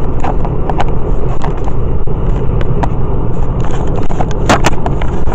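Steady low rumble of road and engine noise inside a moving car. Scattered clicks and knocks from the camera being handled against clothing run through it, with a louder cluster about four and a half seconds in.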